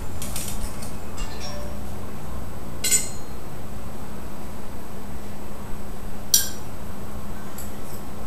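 Glassware and bar tools clinking while a cocktail is mixed: a handful of short, sharp clinks, the loudest about three seconds in and another just after six seconds, over a steady low hum.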